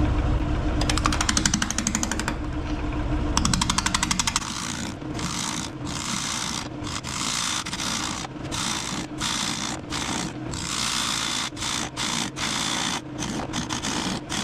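A bowl gouge cuts a rock-hard, cracked end-grain cherry blank spinning on a wood lathe at low speed, around 400 RPM. In the first few seconds it gives fast runs of ticks as the tool bounces over the out-of-round blank, then the cut breaks off briefly again and again. The wood tears out badly at this speed.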